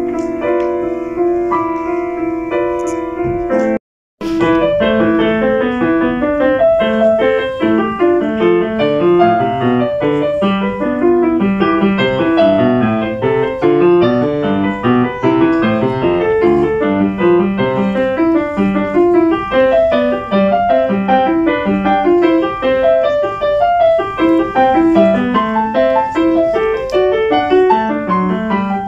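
Steinway grand piano played in recital. The first few seconds are held chords left to ring. After a brief dropout about four seconds in, a second pianist plays a fast, busy passage of many quick notes.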